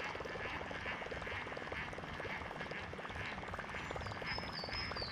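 Frogs calling along the riverbank, a steady chorus of rapid pulsing calls.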